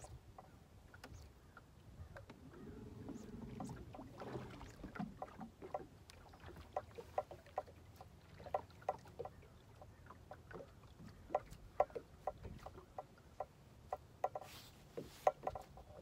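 Small waves lapping against a fishing boat's hull, giving irregular light slaps and knocks over a low steady rumble of wind and water. A brief rush of hiss comes near the end.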